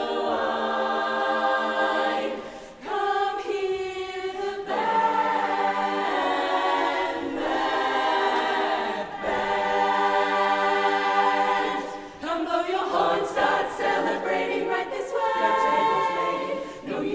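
A chorus singing a cappella in harmony, holding long chords with short breaks between phrases.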